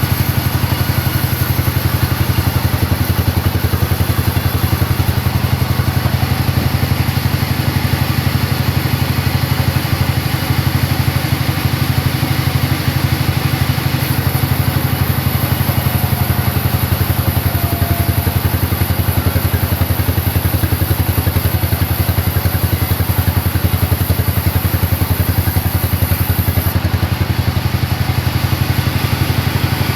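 Engine running steadily at an even speed, with a fast regular firing pulse.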